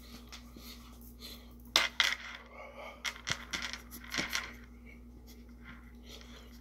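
Short, sharp breaths sucked and pushed through the mouth in three bursts, the loudest about two seconds in: a man panting against the mouth burn of an extremely hot chili chocolate bar.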